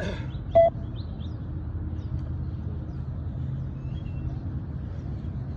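One short electronic beep from the beep test (multi-stage fitness test) recording about half a second in, the signal marking the end of a 20 m shuttle. A steady low rumble runs underneath.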